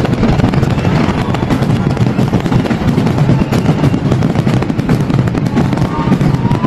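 Aerial fireworks display going off in a dense, continuous barrage of loud bangs and crackling.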